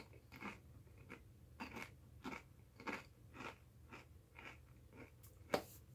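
Faint, regular chewing of crunchy Doritos Blaze tortilla chips, about two crunches a second, with one sharper, louder click near the end.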